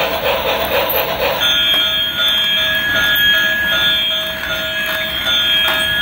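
Battery-powered transparent gear toy train running with its electronic train sound effects. It starts with a repeating pulse about three times a second; from about a second and a half in, several steady electronic tones sound, switching on and off.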